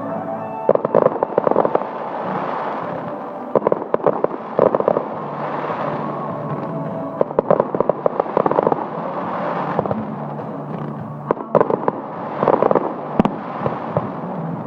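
Fireworks bursting overhead, with repeated clusters of crackling every couple of seconds and a sharp bang near the end, over background music.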